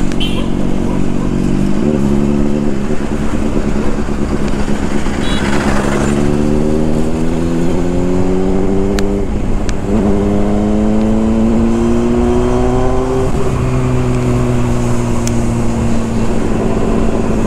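Honda CBR600RR's inline-four engine under way. It holds steady at first, then revs climb from about four seconds in, break at an upshift near ten seconds, climb again, and drop after another shift about thirteen seconds in to a steady, slowly falling note.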